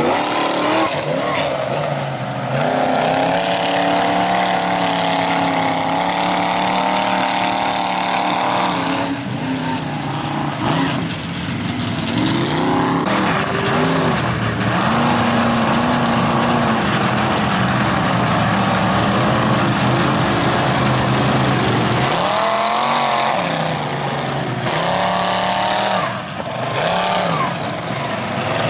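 Engine of a lifted Ford F-350 mega mud truck running through its bull-horn exhaust stacks, revving up and down as it drives through the mud, its pitch rising and falling several times.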